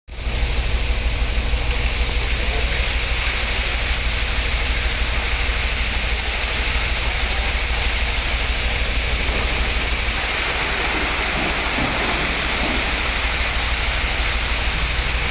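Rainwater pouring and streaming down the walls of a railway tunnel onto the track after heavy rain, a steady loud rushing hiss with a low steady hum underneath.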